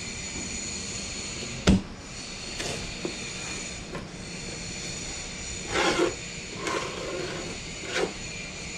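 A plastic putty knife scooping white PVA wood glue from a jar and scraping it along the edge of a plywood panel. There is one sharp knock about two seconds in and a few short scraping strokes in the second half, over a steady background hum.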